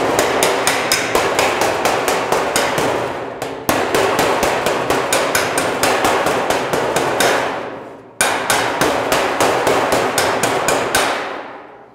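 Homemade mild-steel flipper (slapper) striking a steel car bonnet panel over a dolly held from underneath, about four blows a second in three runs that each trail off, with short breaks about three and a half and eight seconds in. The slapping raises a low spot in the panel, with pressure on the middle and taps around the outside to bring the centre up.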